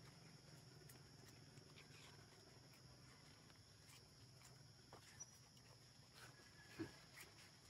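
Near silence: faint outdoor background with a steady high hiss and low hum, and a few faint clicks, the sharpest one near the end.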